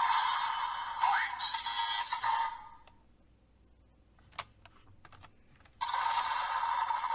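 Kamen Rider Geats DX Desire Driver toy belt playing electronic music and sound effects through its small, tinny speaker. The sound cuts off about two and a half seconds in, a few plastic clicks follow, and the belt's audio starts again about six seconds in.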